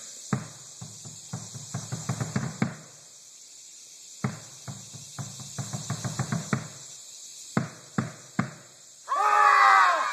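A drum beaten in quick uneven runs of strokes, then three single strikes. About nine seconds in, a loud, wavering cry falling in pitch, lasting about a second.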